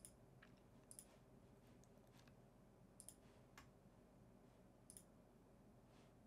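Faint computer mouse clicks against near silence, a handful scattered over several seconds, some in quick pairs.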